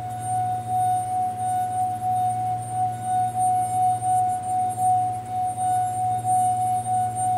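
Glass ringing as a wet fingertip is rubbed around its rim: one steady ringing tone that swells and fades a little with the strokes, the sound of the glass vibrating.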